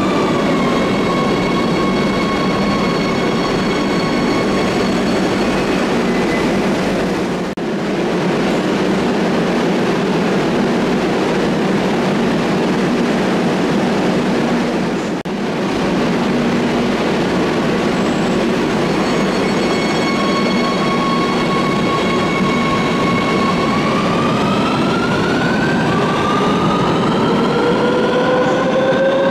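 Madrid Metro Line 3 train with its traction motors whining over a steady rumble. The whine falls and settles at the start, holds steady, and then climbs in pitch in the last five seconds as the train pulls away from the platform.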